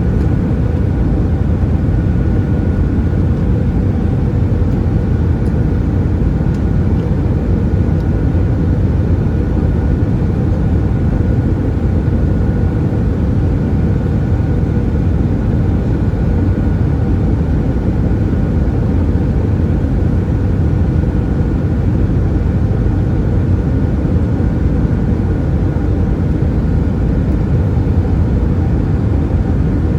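Steady cabin noise inside an Airbus A320-214 in flight: the CFM56 turbofan engines' hum and the rush of air, deep and unchanging, with faint steady whining tones over it.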